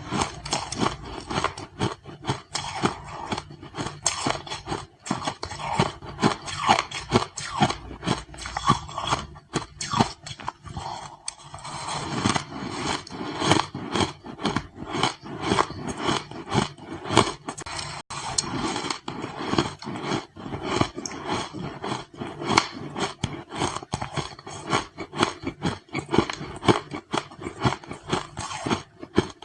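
Ice being bitten and chewed: a rapid, continuous run of crisp crunches and cracks, with a brief lull a little before the middle.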